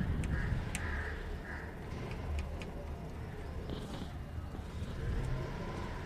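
Faint taps of a foam sponge dabbing oil paint through a plastic stencil onto a fan blade, over a steady low background rumble. A few short bird calls come in small series.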